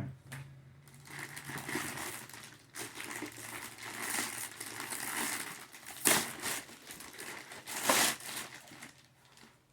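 Plastic packaging crinkling and rustling as toy parts are handled in their box, with two louder crackles about six and eight seconds in.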